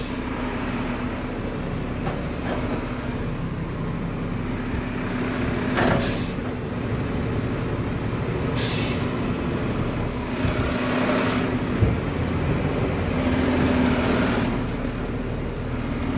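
Diesel engine of a Mack McNeilus front-load garbage truck running steadily, heard from inside the cab, with two short sharp hisses of air about 6 and 8½ seconds in. The engine gets louder twice in the second half as the truck moves off.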